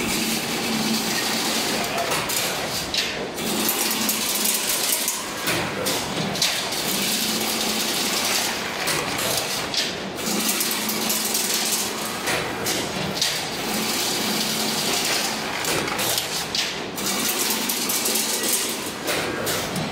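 Fully automatic single-wire chain link fence machine running, weaving wire into diamond mesh: a steady mechanical clatter with rapid clicking, and a low hum that comes and goes about every five seconds as the machine cycles.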